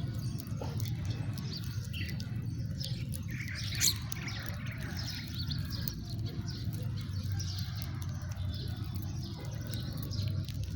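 House sparrows chirping, many short overlapping chirps, busiest in the middle with one louder chirp about four seconds in, over a steady low rumble.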